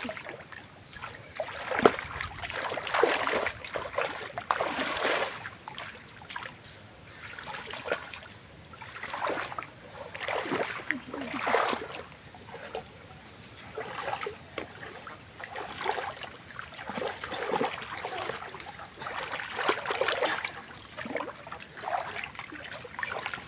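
Water splashing and sloshing in repeated swishing bursts, one every second or two.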